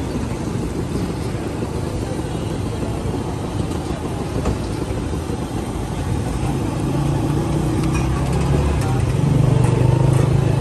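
Street traffic rumbling steadily, with a louder low engine drone building from about seven seconds in.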